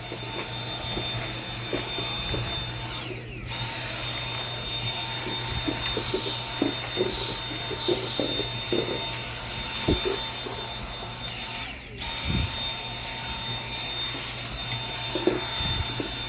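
Dyson V7 cordless vacuum in handheld mode running with a steady high motor whine while its nozzle knocks and scrapes over a dusty surface. The motor drops out briefly twice, about three seconds in and again about twelve seconds in, and comes straight back.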